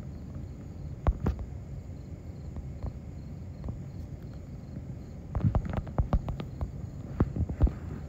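Fingertip taps on a smartphone touchscreen while typing and deleting on the on-screen keyboard: a couple of taps about a second in, then a quick run of taps from about five seconds in until near the end, over a low steady hum.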